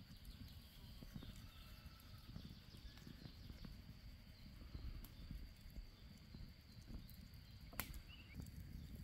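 Near silence: faint outdoor ambience with a low rumble and a single sharp click near the end.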